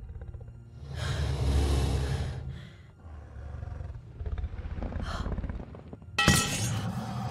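Large dragon creature's deep, rough growl, then a lower growl with breathing. A sudden loud hit with a ringing tail comes about six seconds in.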